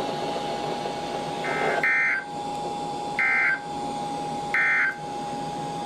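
EAS/SAME digital data bursts from a NOAA weather radio broadcast: three short buzzy bursts about 1.4 seconds apart, the end-of-message code that closes an alert. A faint steady tone hums beneath them.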